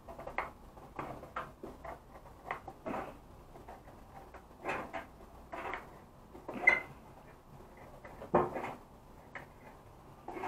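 Hand metal snips cutting thin roofing sheet steel along a marked line: a series of irregular sharp snipping clicks, one every half second to a second as the jaws close, the loudest about two-thirds of the way through.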